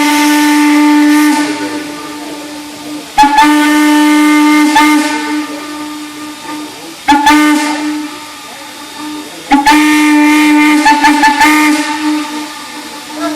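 Steam locomotive whistle blowing the grade-crossing signal: long, long, short, long. It is a loud, multi-tone whistle, with steam hissing under the blasts.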